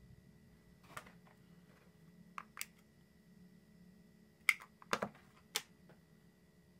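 Small sharp clicks and taps of makeup being handled, a brush against an eyeshadow palette: one about a second in, two close together around two and a half seconds, then a quick cluster between four and a half and five and a half seconds in.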